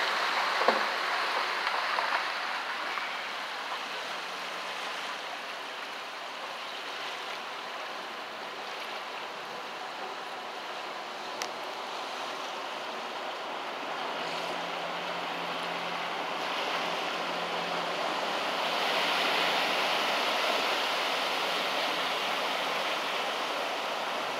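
Floodwater rushing across a street, a steady watery rush that eases after the first few seconds and swells again about two-thirds of the way in.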